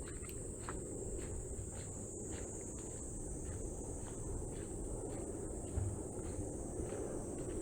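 Crickets trilling in one steady high-pitched drone, with a walker's footsteps about twice a second and a low steady rumble underneath.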